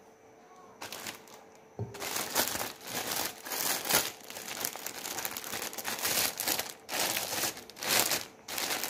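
Clear plastic bag crinkling and rustling as it is handled around a block of chilled chocolate cookie dough, in a dense run of irregular rustles from about two seconds in, after one short rustle about a second in.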